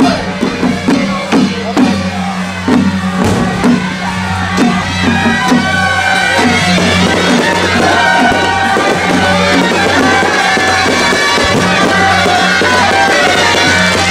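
Music with a steady low drone and, from about five seconds in, a melody of held high notes, loud throughout. Over the first five seconds or so it is mixed with a fast run of short sharp cracks from fireworks being set off.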